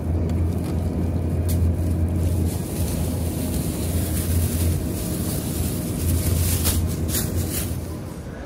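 Thin plastic produce bag rustling and crinkling with a few sharper crackles as handfuls of green beans are stuffed into it, over a low steady rumble.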